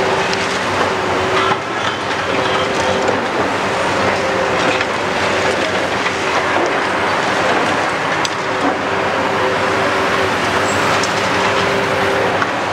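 Kiesel KMC 600 demolition carrier working its hydraulic crusher on concrete: heavy diesel and hydraulics running steadily, a whine that comes and goes in stretches of a second or two, and continual crunching and crackling of rubble breaking and falling.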